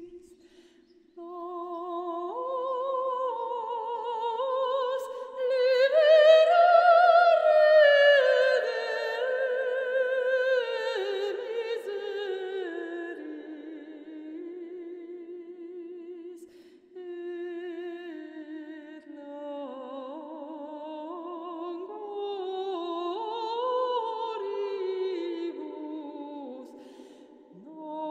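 Wordless vocal music: a woman's voice, seemingly layered, holds long notes with vibrato and glides slowly between them. It swells loudest about a quarter of the way in, thins out, then rises again.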